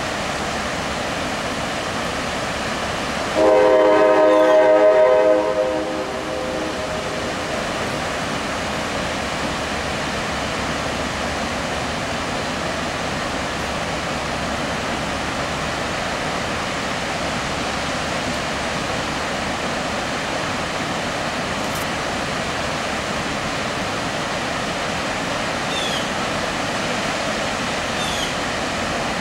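A freight locomotive's air horn sounds one chord-like blast of about two and a half seconds, a few seconds in, over the steady roar of a waterfall and the rumble of a freight train crossing a steel trestle overhead.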